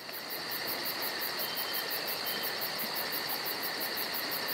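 Steady night-insect ambience: even, very high chirps about five a second over a constant hiss.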